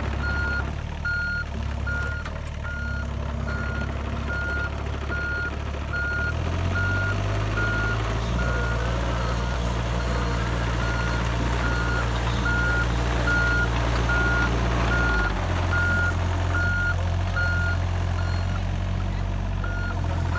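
Excavator's travel alarm beeping steadily, about two to three high beeps a second, over its diesel engine running. The engine note rises about six seconds in and drops again near fifteen seconds, as the machine is worked.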